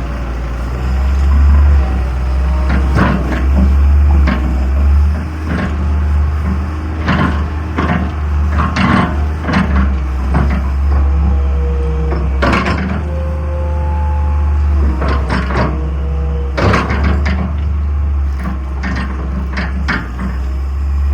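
Hitachi EX220-2 excavator's diesel engine running steadily, with repeated clanks and knocks as its controls are tried out without digging.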